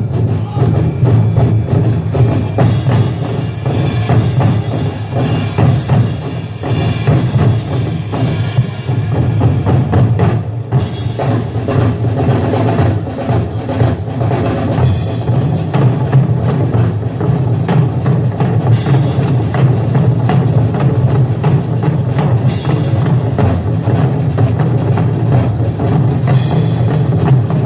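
Music with drums and percussion played continuously.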